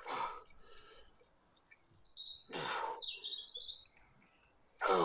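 A bird sings a short chirping phrase about two to four seconds in. Around it come hard breaths of a man straining through dumbbell curls: a short exhale at the start and a louder, grunting exhale near the end.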